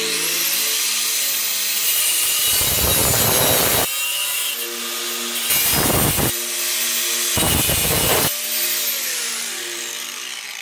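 Angle grinder with a cut-off disc spinning up with a sudden high whine, then biting into steel box-section tube three times, in cuts of about a second each. Near the end it winds down, its whine falling away.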